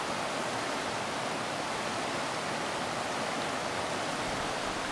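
River water rushing over rocks: a steady, even hiss.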